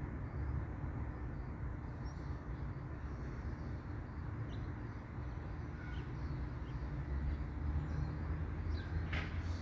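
Steady low outdoor rumble of background noise, with a few faint high bird chirps; the strongest chirp comes near the end.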